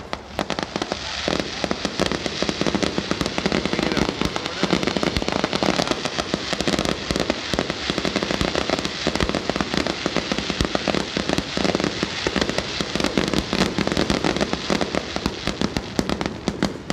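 Fireworks going off: a dense, rapid crackle of sharp pops and cracks that swells about a second in and keeps up without a break.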